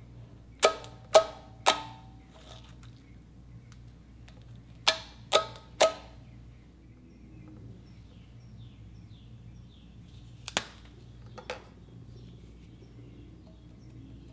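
Thick slime popping as fingers poke into it: three sharp pops about half a second apart, three more about five seconds in, and two fainter clicks later on.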